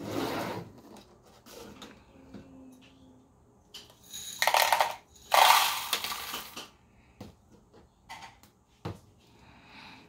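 Dried seeds poured from a glass bowl into a plastic cup, rattling, then several louder bursts of rattling and handling noise a few seconds in, with a few sharp clicks near the end.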